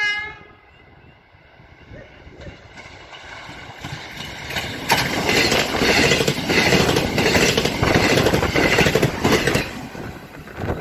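ДП6 diesel multiple unit approaching and passing at speed. Its rumble builds from about two seconds in and is loudest from about five to nine and a half seconds, with rapid wheel clatter over the rail joints, then falls away as it moves off. A brief loud tone sounds at the very start.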